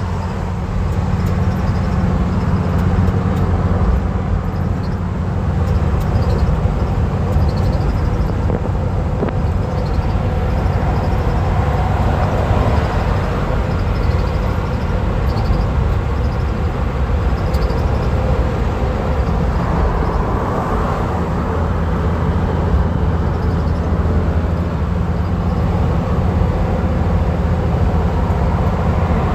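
A van driving at highway speed: steady engine and road rumble with tyre noise.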